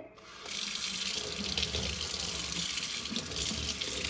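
Kitchen faucet turned on and running into a stainless steel sink, the stream splashing over hands rinsing a chicken bone. The flow builds up over the first half second, then runs steadily.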